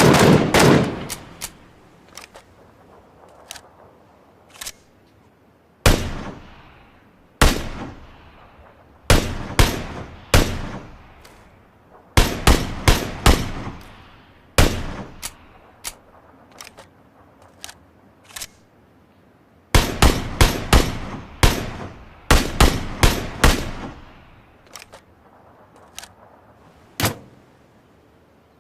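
Gunfire sound effects: a rapid burst of automatic fire that stops about a second in, then single shots and short bursts of several quick shots, each shot trailing off in an echo, with quiet gaps between.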